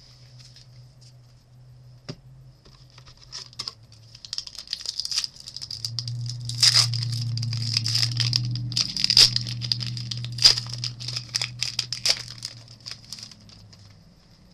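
Crinkling and tearing of a trading-card pack wrapper as it is opened, with the cards being handled, in irregular crackly bursts that are busiest through the middle.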